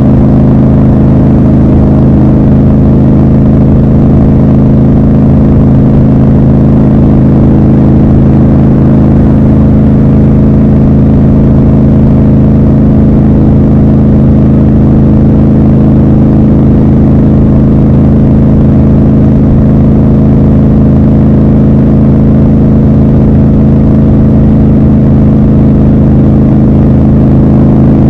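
Triumph Scrambler 1200 XC's 1200 cc parallel-twin engine and exhaust running steadily at an even cruising speed, heard from the rider's seat, with no gear changes or revving.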